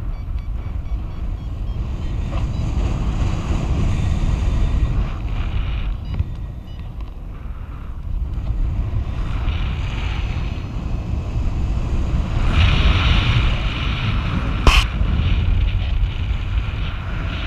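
Airflow buffeting the microphone during paraglider flight: a steady low rumble, with the hiss growing louder for a couple of seconds about three-quarters of the way through. A single sharp click near the end.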